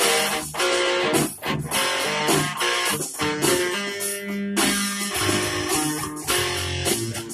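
Guitar played fingerstyle: plucked bass notes under a picked melody, notes ringing over one another with frequent sharp attacks.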